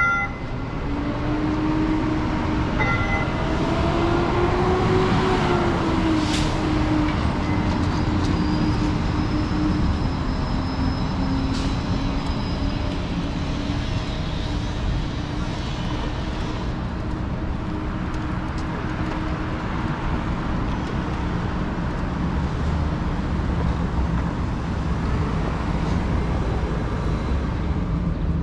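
QLine electric streetcar pulling away, its motor whine rising in pitch over the first few seconds, then wavering and fading. Steady city traffic noise runs underneath, with a short chime right at the start and again about three seconds in.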